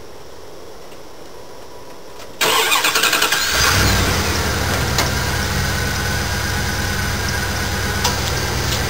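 Dodge Ram van's engine started: the starter cranks for about a second, beginning a little over two seconds in, then the engine catches and settles into a steady idle.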